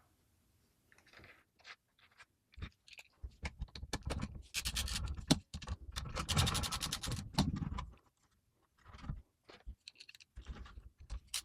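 Scraping and clicking of metal and plastic as PC parts are handled and fitted into a small-form-factor case. These are scattered sharp clicks with stretches of scraping, a short pause, then quicker clicking near the end.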